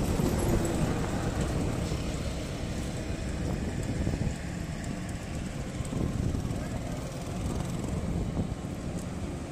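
Steady rumble of a moving vehicle, with road noise and wind on the microphone.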